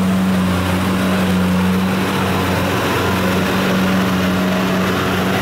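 Engine of a small tracked rice-hauling cart running steadily as the cart drives across the field, the hum dipping briefly near the middle.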